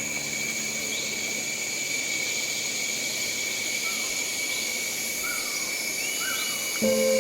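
A steady, high-pitched insect chorus of crickets or katydids trilling, with short rising chirps repeating about once a second over it. Music comes in near the end.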